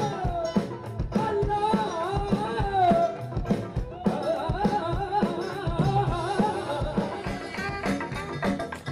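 A live band playing: a singer's voice with a wavering, held melody over guitars and a steady drum beat.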